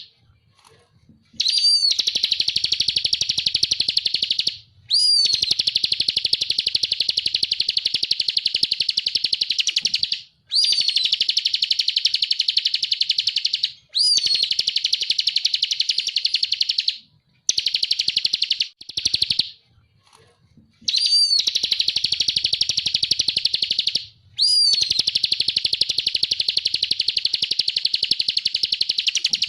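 Ciblek (bar-winged prinia, the 'kristal' type) singing: long phrases of fast, evenly repeated high notes, each several seconds long and opening with a quick up-and-down swoop, separated by brief pauses, about seven phrases in all.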